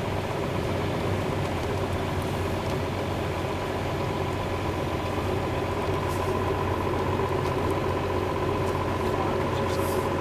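Steady engine and road drone heard from inside a vehicle's cabin while driving, with a constant low hum and a few held tones.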